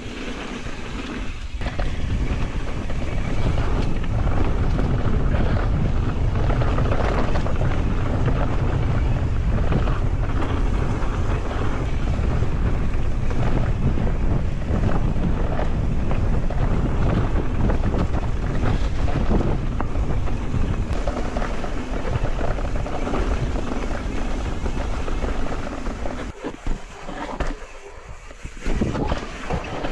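Wind rushing over the microphone while a mountain bike rides fast down a dirt forest trail, with the tyres rumbling and the bike knocking over bumps. The noise drops away for a couple of seconds near the end, then picks up again.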